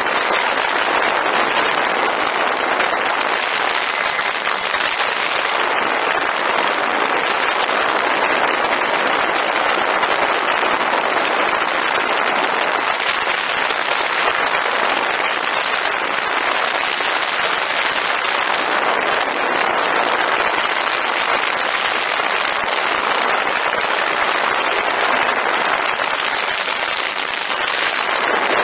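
Steady rushing noise of airflow and propeller on the onboard camera of a Ranger 2000 FPV model plane in flight, with a slight swell near the end.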